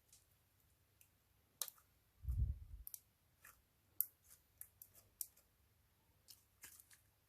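Light, irregular clicks and taps from small items being handled while making slime, with one dull thump a little over two seconds in.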